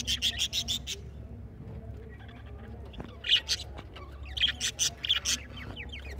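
Small parrots chirping in quick runs of sharp, high calls: one run at the start, a short one about three seconds in, and a longer run a second or so later, over a steady low hum.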